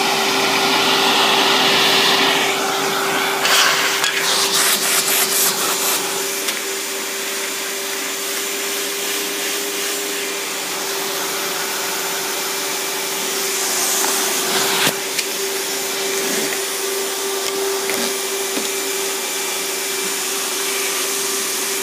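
Riccar 10-amp bagged vacuum running with a steady motor whine over its rushing airflow. It is louder and hissier for the first two seconds or so, then gives a run of quick clicks and rattles for a couple of seconds before settling to an even hum.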